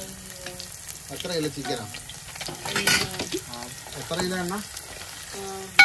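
Garlic and sliced aromatics sizzling in hot oil in a large aluminium cooking pot, stirred with a perforated steel ladle, with a sharp scrape of metal on the pot about three seconds in.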